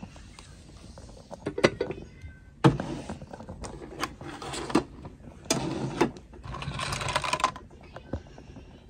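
Packaging being handled and opened: several short bursts of rustling with sharp clicks and taps between them.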